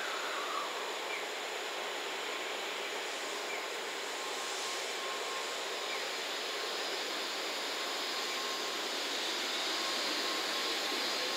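N700S Shinkansen train starting to pull out along the platform: a steady hiss from its electrical equipment and running gear, with a faint motor whine that begins to rise in pitch near the end as it picks up speed.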